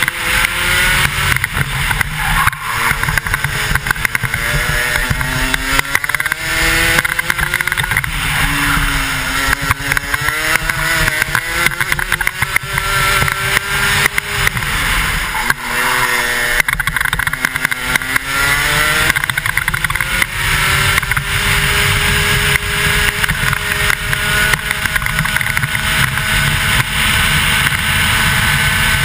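125cc two-stroke kart engine at racing speed, heard from the driver's helmet: its pitch climbs along the straights and drops as the driver lifts for corners, with one deep drop about halfway through before it winds back up and holds a steady high pitch to the end.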